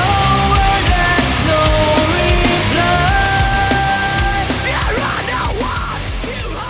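Heavy metal music track: a held lead melody stepping between long notes over fast, dense drums, with some sliding notes about five seconds in, fading out near the end.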